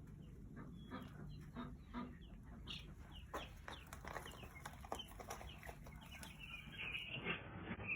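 A brood of days-old Cornish Cross meat chicks peeping, with many short chirps overlapping throughout.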